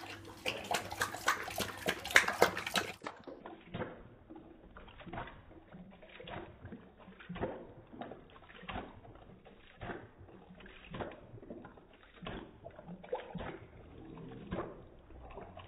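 Boxer dog lapping water from a stainless steel bowl, with splashing and slurping. For about the first three seconds the laps come quick and dense at normal speed. After that the same lapping is slowed down, each lap a drawn-out slosh, about one and a half a second.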